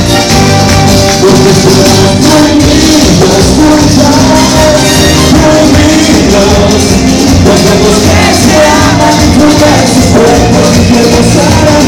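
Loud band music with a steady dance beat, playing without a break.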